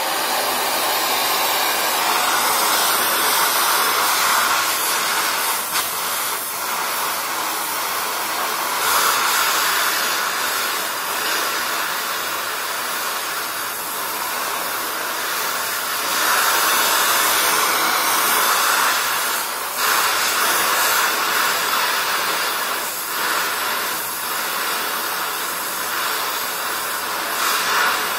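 Donmet 132A micro gas welding torch flame hissing steadily while a pipe is welded with 3 mm steel filler wire. The hiss dips briefly now and then as the torch is moved.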